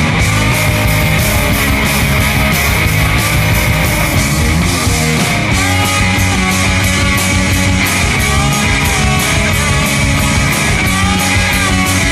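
Punk rock recording with electric guitars and drums, played loud with a steady, driving beat.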